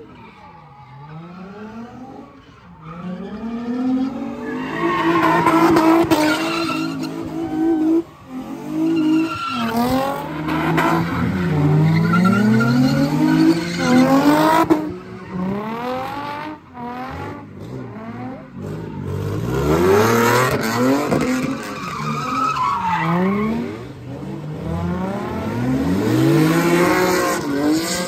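A Pontiac G8's engine revving hard over and over, its pitch climbing and dropping in long sweeps, with tires squealing as the car slides.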